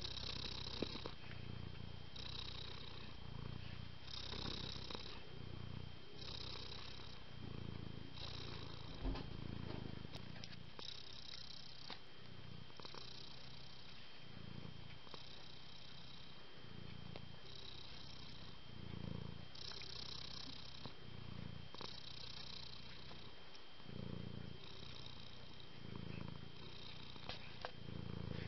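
Domestic cat purring steadily. Each breath in and out makes a rumbling phase, and one full cycle takes about two seconds.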